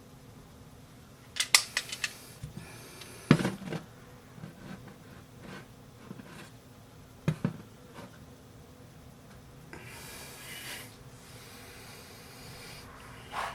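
Handling noises from hands working at a computer: a quick cluster of clicks about a second and a half in, a knock around three seconds, another knock near the middle, and a softer rustle or scrape a little later.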